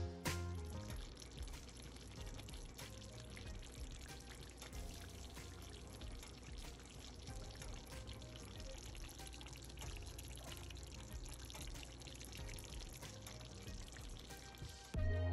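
Curry chicken and potatoes simmering in a pan of gravy: a steady bubbling hiss with many small pops.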